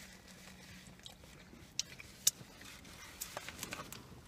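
Close-up eating sounds: faint chewing and mouth noises, with a few sharp clicks, the two loudest about two seconds in.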